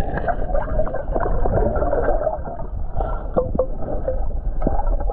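Muffled underwater sound: steady gurgling and bubbling, broken by many short clicks and knocks as a rope and clip are worked around a submerged artillery shell.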